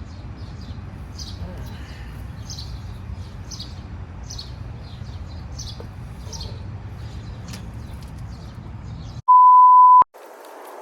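Outdoor ambience with a low rumble and short, high bird chirps repeating about twice a second. Near the end this cuts to a loud, steady electronic beep lasting under a second.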